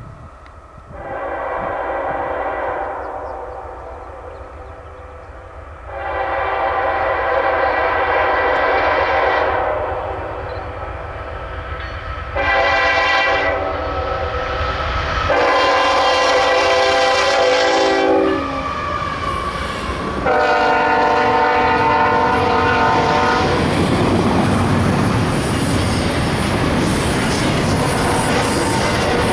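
Freight train locomotive's air horn sounding five blasts, the third one short. About two-thirds of the way through, the loud rumble and clatter of the train rolling past takes over.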